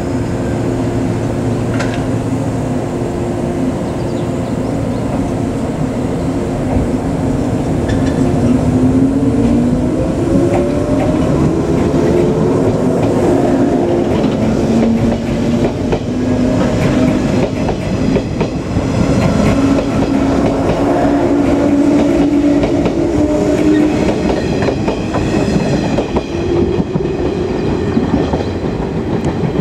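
Shinano Railway 115-series electric train pulling out and accelerating past, with wheels clattering over rail joints. Its motor whine starts as a steady hum, then climbs in pitch several times over, dropping back and rising again.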